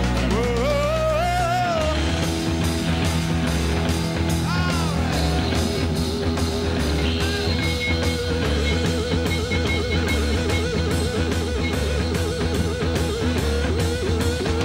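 Live hard-rock band with electric bass and drum kit: a rising vocal wail in the first two seconds, then an electric guitar solo on a Stratocaster through Marshall amplifiers. From about eight seconds in, the guitar holds a note with fast, wide vibrato.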